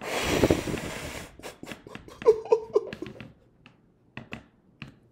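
A man's anguished wordless reaction: a long breathy exhale, then three short whimpering cries about two seconds in, followed by a few faint clicks.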